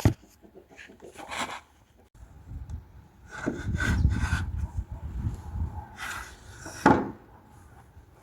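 A sharp knock, then rubbing and scraping, with a longer, louder scraping stretch in the middle and another sharp knock near the end.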